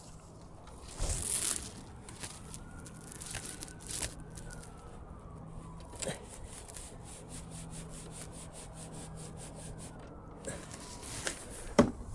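T20 Torx driver turning the side panel's Torx bolts into place: a run of small, rapid clicks through the middle, with a scraping rub early on and a sharp knock near the end as parts are handled.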